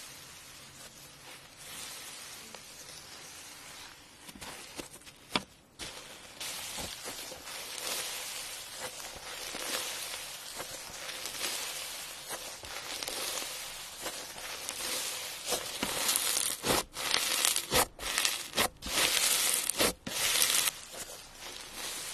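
Slime being squished and stretched by hand, giving a crackly, crinkly rustle with sharp pops. It grows louder, with quick popping bursts, in the last few seconds.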